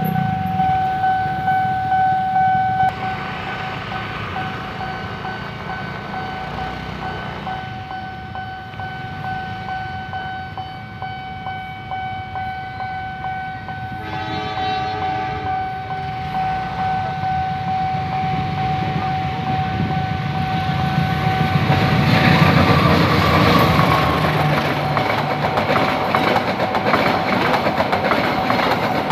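Railway level-crossing warning siren sounding a steady tone throughout. Near the middle a train horn blasts once for about two seconds. In the last third the train passes, its wheels clattering over the rails.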